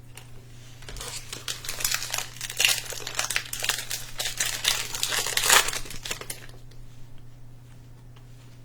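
Plastic trading-card pack wrapper being torn open and crinkled: dense crackling from about a second in, easing off after about six and a half seconds.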